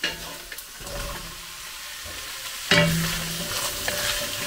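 Sliced carrots and onions sizzling in butter and oil in an enamelled cast-iron casserole, stirred with a wooden spoon. A few light knocks come near the start, and the sizzling and stirring get suddenly louder a little under three seconds in.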